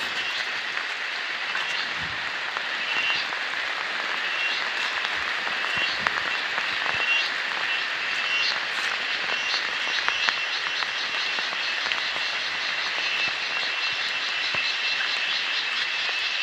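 Outdoor ambience: a steady rushing noise under a chorus of short chirping animal calls, which become fast and regular about halfway through.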